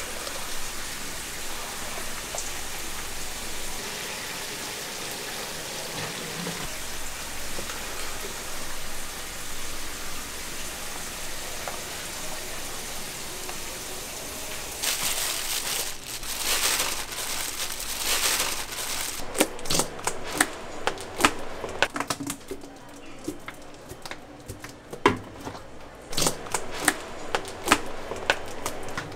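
Wet chicken feet being turned and tossed by gloved hands in a stainless steel basin: a steady hiss for about the first half, then a run of quick clicks, clatters and wet rustling as the feet knock against each other and the metal.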